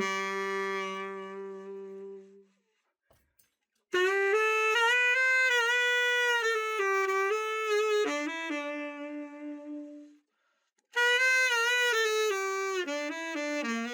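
Borgani Macerata tenor saxophone played after a full overhaul. It plays short melodic phrases with long held notes, separated by two brief pauses. The first phrase ends on a low note that fades out.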